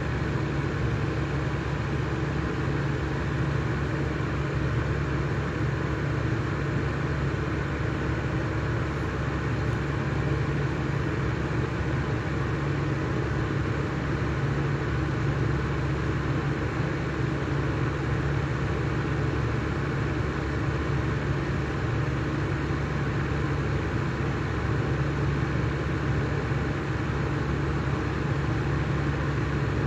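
Lenco 300 mm industrial exhaust fan running steadily: an even rush of air with a constant low motor hum.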